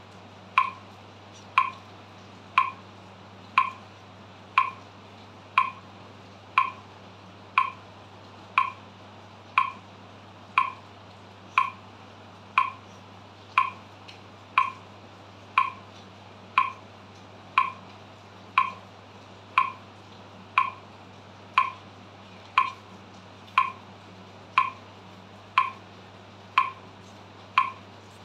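Metronome set to 60 beats per minute, ticking steadily at one click a second.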